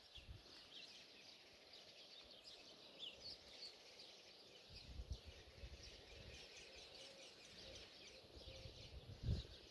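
Faint, scattered chirping of small birds over near silence, with a couple of soft low rumbles, about five seconds in and again near the end.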